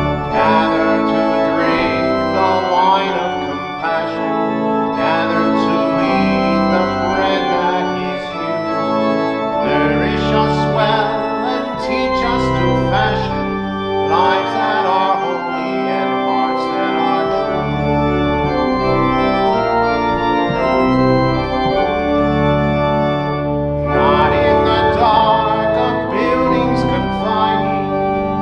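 Organ playing slow, sustained chords that change every second or two, with a deep bass line that drops out and comes back several times.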